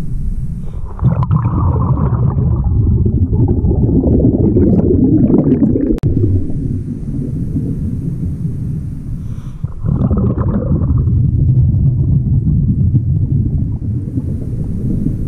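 A scuba diver's regulator breathing cycle heard underwater: two long exhalations of loud low bubbling, with a faint hiss of an inhalation in between.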